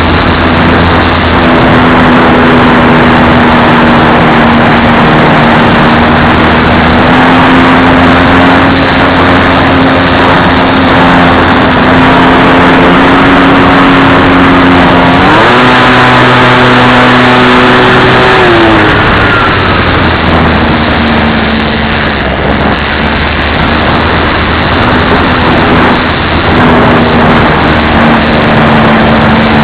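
An RC model airplane's motor and propeller running steadily in flight, loud and close, over a rushing noise. About halfway through the pitch steps up as the throttle is opened, holds for a few seconds, then drops back.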